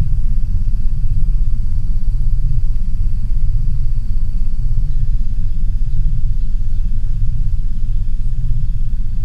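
Loud, deep steady rumble with a slow throbbing swell, a designed drone standing for the mysterious 'strange sounds' phenomenon of 2011–2012, with a faint thin high whine above it.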